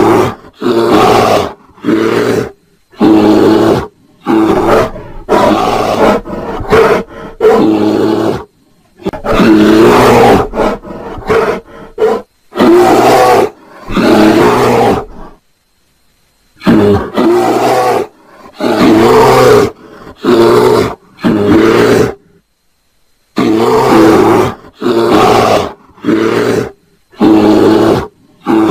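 Bear roaring and growling during mating: a run of loud, short pitched calls in quick succession, broken by two pauses of about a second, about halfway through and about three-quarters of the way through.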